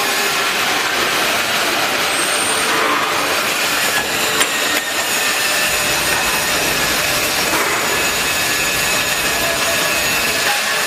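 Bottling line machinery running: the steady mechanical noise of the bottle conveyor and labelling machine, with faint steady whines and one sharp click a little over four seconds in.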